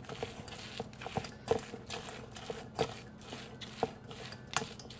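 Hands mixing a crumbly seitan, pea and chili filling by hand in a stainless steel bowl: soft, irregular squishes and light clicks, a few a second.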